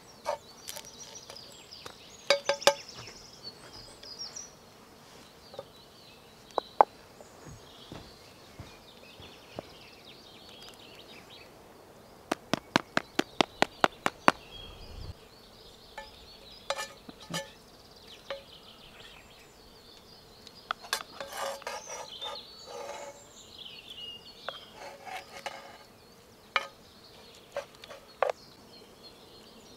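A wooden spoon clicking and scraping against metal frying pans while eggs and bacon are stirred and served, with a quick run of about ten taps near the middle as the wooden utensil is knocked against a stone. A faint insect buzz runs underneath.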